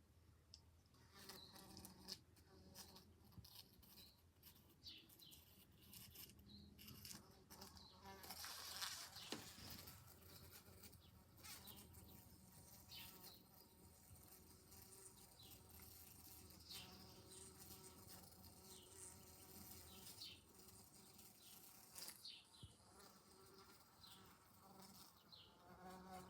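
A bee buzzing at a window pane, its wing buzz coming and going, with frequent sharp ticks as it bumps against the glass.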